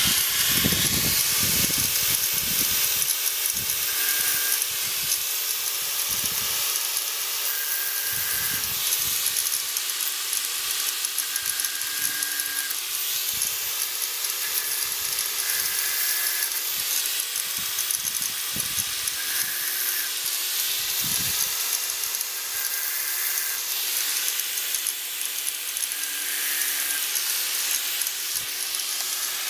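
Small corded angle grinder running at high speed, its disc grinding the cutters of a dull Stihl chainsaw chain to sharpen it. A steady high whine, with short changes in tone every few seconds.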